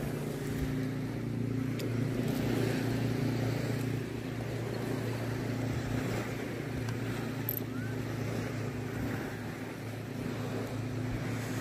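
Boat engine running steadily with a low, even hum.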